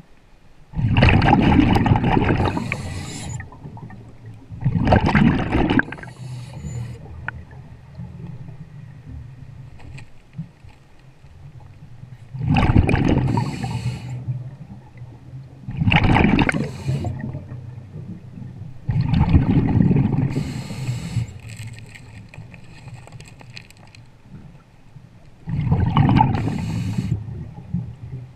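A scuba diver breathing through a regulator, heard underwater: about six loud bursts of exhaled bubbles, one every few seconds, with a low steady hum between them.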